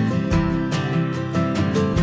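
Background instrumental music led by plucked acoustic guitar, with notes struck in a quick, even rhythm.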